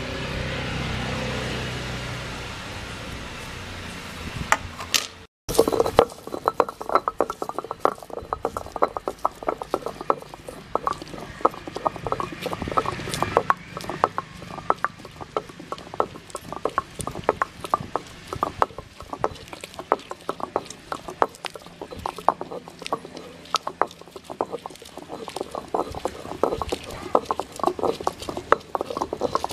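Hand-turned granite stone grinder (attukal): the stone pestle rolls round the granite mortar, crushing shallots, tomato and green chilli. From about five seconds in it makes a fast, uneven run of gritty clacks and knocks.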